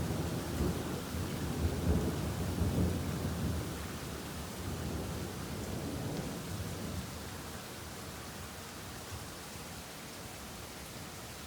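Rolling thunder rumbling low and heavy over the first few seconds, then dying away, with steady rain hissing throughout.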